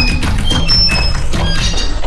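Cartoon soundtrack: music mixed with rapid clattering knocks and thumps over a steady low rumble, with short high ringing tones recurring.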